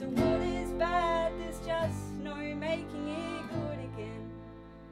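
Folk trio of accordion, double bass and cittern guitar playing a tune, ending on a held chord that fades away in the last second or so.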